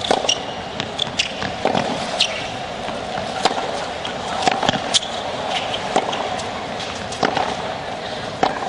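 Tennis baseline rally on a hard court: racquets strike the ball back and forth about every one to one and a half seconds, sharp pops over the steady background noise of a stadium crowd.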